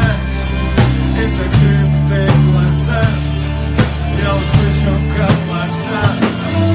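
Live band playing an instrumental passage of a rap song: an electric bass holds long low notes under drums keeping a steady beat, with guitar or keyboard lines above. The sound is captured through a phone live-stream.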